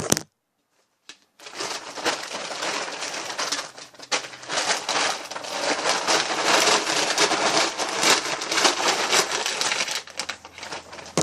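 Dry chicken feed being scooped into a pail: a dense, continuous rattling crunch of grain and pellets that starts about a second and a half in.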